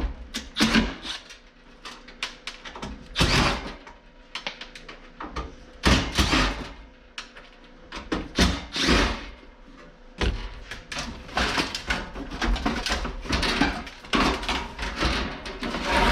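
Air conditioner's sheet-metal casing being taken apart by hand: repeated irregular clanks, knocks and scraping of metal panels and parts.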